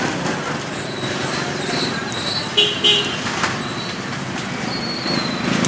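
Street traffic running steadily, with two short high horn toots in quick succession about two and a half seconds in.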